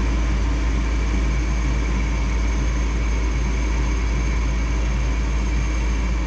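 Furnace draft inducer motor running steadily as the first stage of the furnace's start-up sequence on a newly installed control board, a constant low hum with a faint high whine.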